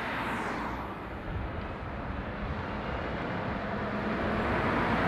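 Road traffic at a roundabout: a car drives past close by, then a Volvo articulated-truck tractor unit comes round toward the listener, its diesel engine running under the tyre and road noise, which grows louder near the end.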